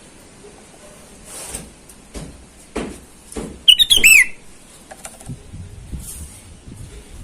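Sooty-headed bulbul giving one short burst of rapid whistled notes about four seconds in, the last note dropping in pitch, with a few faint knocks before it.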